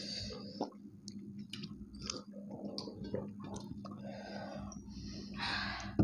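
Chewing and the wet squish of fingers mixing rice and curry on steel plates, with scattered small clicks. There are a couple of louder breathy rushes near the end.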